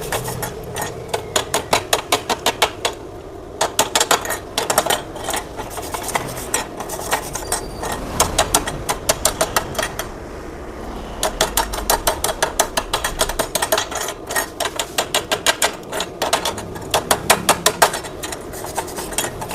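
Quick runs of sharp metal-on-metal taps with short pauses between, like a chipping hammer knocking slag off a fresh gasless flux-cored MIG weld on stainless steel.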